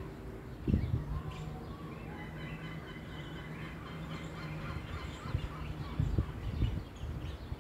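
Outdoor ambience: wind buffeting the microphone in short low rumbles, loudest about a second in and again near the end, over a steady low hum and faint high chirping.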